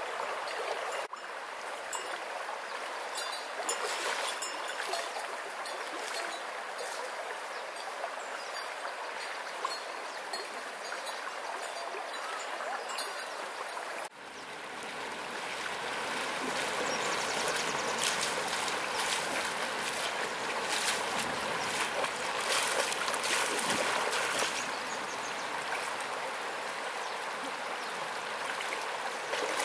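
Shallow river water flowing over stones, with splashing from legs wading through it. The sound changes abruptly about halfway through and is louder and fuller after that.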